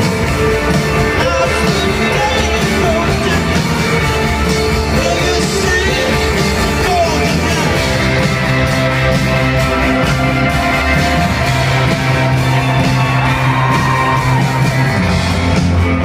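Live rock band playing loudly: electric guitars, bass guitar, drums and keyboards under a lead singer, with shouted voices in the mix.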